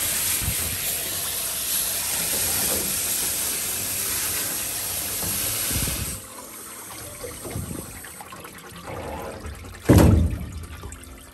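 Water hissing from a pet-wash station's hose sprayer, steady for about six seconds and then shut off. A sharp thump near the end.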